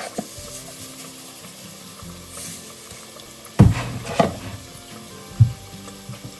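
Hush puppies frying in hot oil, a steady sizzle, with three sharp knocks in the second half.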